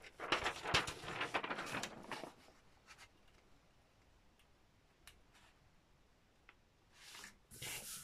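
A sheet of drawing paper rustling as it is handled and laid over a gel printing plate. It falls quiet for a few seconds, then hands rub across the paper to press it flat near the end.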